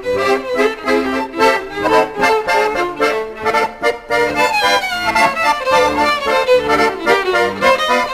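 Instrumental background music led by an accordion melody over a pulsing bass line.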